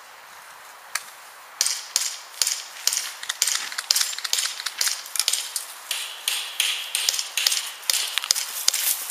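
Footsteps crunching and rustling through tall dry grass and weeds, starting about a second and a half in and going at a quick pace of two to three steps a second.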